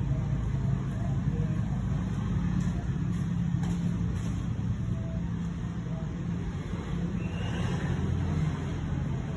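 A steady low rumble, with a faint brief higher sound about eight seconds in.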